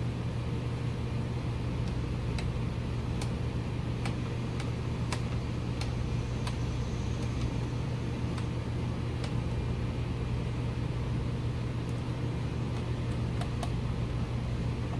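A steady low mechanical hum, with light clicks and taps at irregular intervals as the gauge panel and dash wiring are handled and fitted back into the dash.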